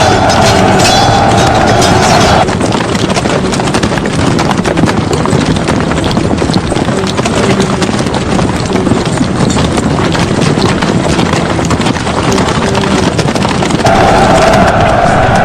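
Many horses galloping, a dense rapid clatter of hooves. A steady droning tone runs over it at the start, stops about two and a half seconds in, and returns near the end.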